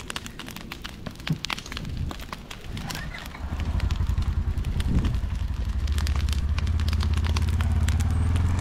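Dry smut grass burning with a crackle of sharp pops throughout. A low, steady engine rumble from the Ranger utility vehicle comes in about three and a half seconds in and holds.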